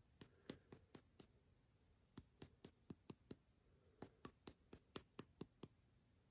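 Faint, light taps on the bottom of an upturned square glass beard-oil bottle, shaking the oil out through its restrictor top. They come in three quick runs of about four or five taps a second.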